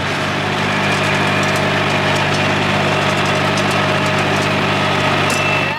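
Tractor engine running steadily while it pulls a round baler, its level stepping up slightly at the start and then holding even.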